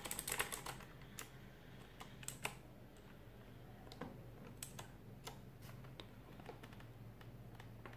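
Aula KB890 mechanical keyboard with blue switches clicking under typing: a quick run of key clicks in the first second, then scattered single key presses.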